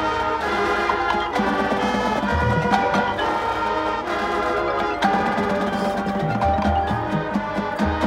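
High school marching band playing a field show: drums and mallet percussion over held band chords, with deep low notes coming in twice.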